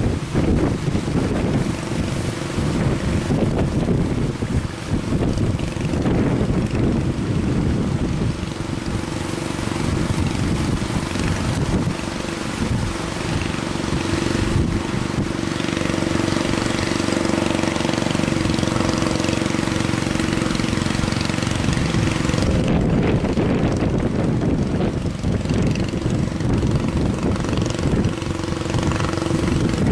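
Fishing boat's motor running steadily, under heavy wind noise on the microphone.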